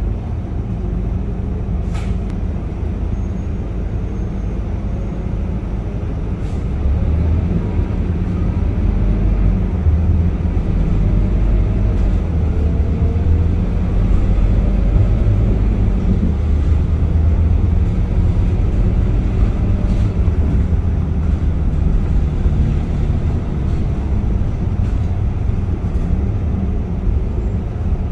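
Scania K230UB city bus running under way, its engine and drivetrain giving a steady low drone that grows louder about seven seconds in, with faint rising and falling tones over it and a few light clicks.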